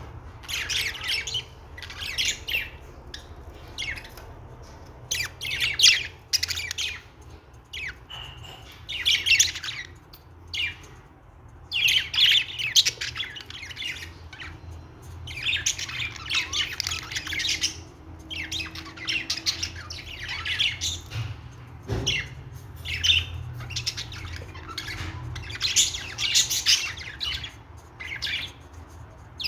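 Budgerigars chirping and squawking in repeated bursts of chatter, with short pauses between.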